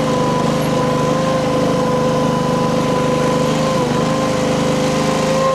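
Mini skid steer's Honda GX690 V-twin gasoline engine running steadily, with a steady whine over it.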